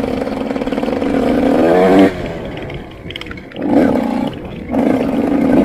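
Motorcycle engine under throttle while riding: the pitch climbs for about two seconds, falls away sharply as the throttle closes, then comes back in two or three short surges of throttle.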